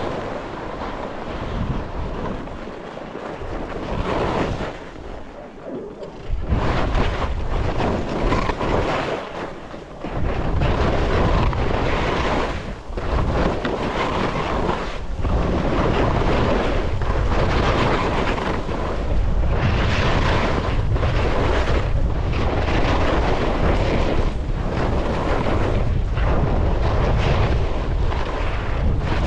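Wind rushing over the microphone during a fast ski descent, with skis scraping the snow in repeated turns over moguls. The low wind rumble grows much heavier about six seconds in and stays heavy from about ten seconds on.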